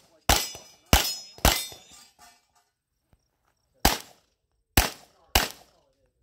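Six pistol shots: three in quick succession, each followed by a ringing clang of steel targets being hit. After a pause of about two seconds come three more shots, about half a second to a second apart.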